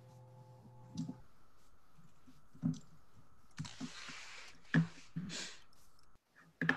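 Scattered light clicks and soft taps picked up by a computer microphone, over a faint steady hum that stops about a second in. There is a brief hiss near the middle and a quick cluster of clicks at the end.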